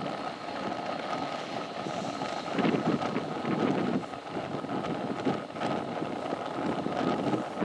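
Airbus A321-231's IAE V2500 jet engines running at taxi power, a steady high tone over a low rumble, with wind buffeting the microphone in gusts.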